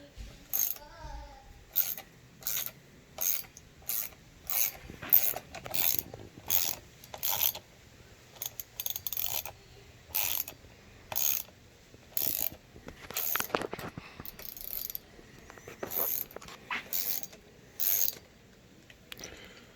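Ratchet wrench with an 8 mm socket clicking on its back-strokes while working a bolt on a dirt bike's handlebar lever, one short burst of clicks about every two-thirds of a second, with a brief pause a little before halfway through.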